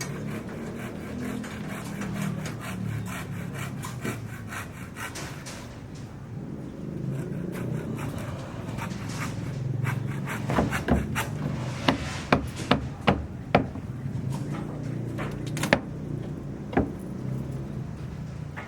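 Scraping and rubbing over a low steady rumble, with a run of sharp knocks, about eight loud ones, through the middle: the kind of wood and building work heard on a construction site.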